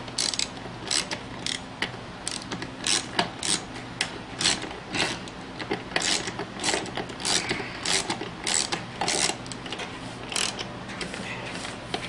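Hand ratchet wrench clicking in short, uneven strokes, about twenty over the stretch, as bolts on a rebuilt air suspension compressor are tightened. A faint steady hum runs underneath.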